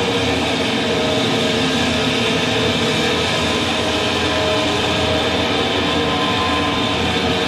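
Heavily distorted electric guitar holding a dense, steady wall of noise and feedback at a live rock show, with several sustained tones running through it.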